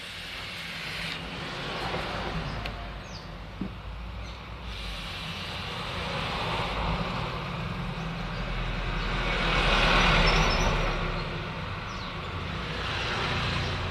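A long, hissing breath of vapor drawn through and blown out from a Tesla 90-watt vape mod, swelling to its loudest about ten seconds in as the cloud is exhaled, over a low hum.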